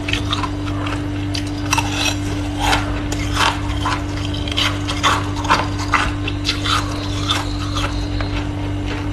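Freezer frost being crunched: a series of irregular crisp crunches, a few a second, over a steady low hum.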